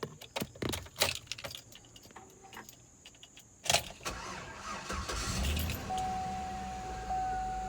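Keys jangling and clicking at the ignition, then the Hummer H3T's 5.3 Vortec V8 cranks, starts about five seconds in and settles into a steady idle. From about six seconds a steady electronic warning-chime tone sounds over it, with a brief break about every second.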